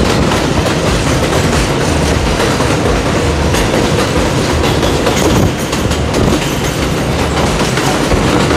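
R142A subway train running on a steel elevated line: a loud, steady rumble with the wheels clattering over the rail joints.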